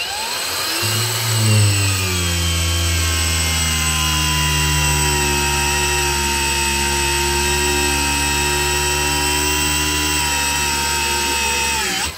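Cordless 20 V brushless angle grinder spinning up and running steadily for about twelve seconds while pressed into a block of wood, its pitch sagging slightly under the load. Powered by a good 4 Ah battery, it keeps running without cutting out, so the tool is sound and the fault lies in its original low-grade 18650 battery packs. The motor stops sharply near the end.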